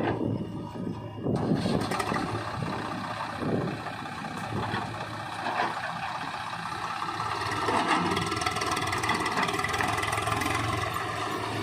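Diesel engines of a JCB 3DX backhoe loader and a tractor running, the machinery noise picking up about a second in and then holding steady.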